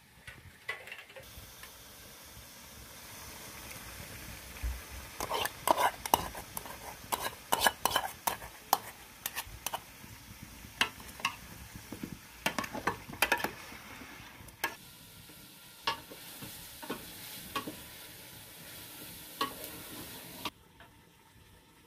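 Meat sizzling in an aluminium pot over a wood fire, with a metal ladle stirring and clinking against the pot many times as tomato sauce goes in. The sizzling cuts off suddenly shortly before the end.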